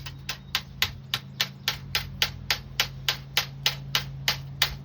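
A small hammer tapping a metal spline into the channel of a window-screen frame: a quick, even run of light, sharp taps, about three and a half a second.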